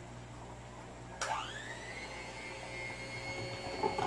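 Electric hand mixer switched on with a click about a second in, its motor whine dropping in pitch and settling into a steady run as it starts whipping coffee, sugar and hot water. Near the end the beaters knock against the plastic tub.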